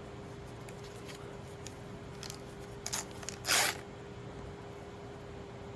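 Trading cards being handled and slid into a pile: a few faint ticks and small rustles, then one short, loud brushing swish about three and a half seconds in, over a faint steady hum.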